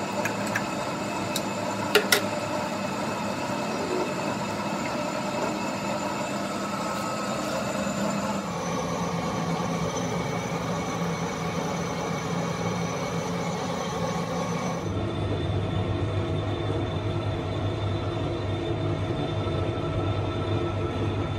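Steady mechanical hum of gear-cutting machinery running, with a few sharp metallic clinks about two seconds in from a wrench on the machine's work table. The hum's pitch and character change abruptly twice, about eight and fifteen seconds in.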